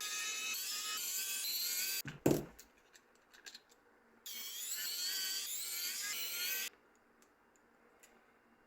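A small high-speed motor-driven tool runs in two bursts of about two seconds each, its whine wavering in pitch and switching on and off abruptly. Between the bursts there is a single loud thump followed by a few light clicks.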